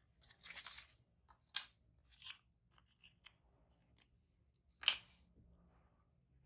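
Handling noises from a laptop RAM module and the opened laptop: a brief rustle, then several sharp small plastic clicks, the loudest about five seconds in.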